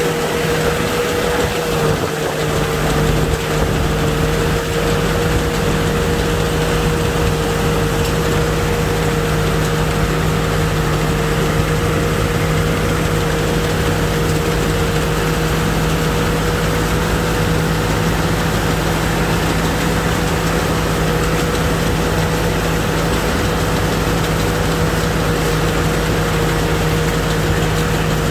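Rice combine harvester's engine and threshing machinery running steadily at close range, with a constant whine over a low hum.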